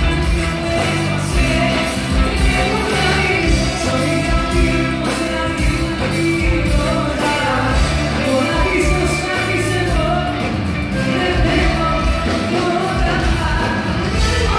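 Live band music with a woman singing over a steady beat of drums and bass.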